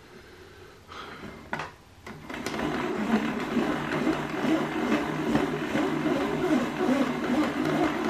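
Casdon Hoover Electron 1100 De Luxe toy washing machine: after a couple of clicks, its small electric motor starts about two seconds in and runs steadily with a buzzing whir, turning the drum with water and washing inside.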